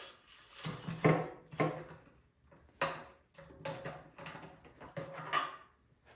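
A string of separate clicks and light knocks as the fuel cap of the generator's tank is worked off to check the fuel level.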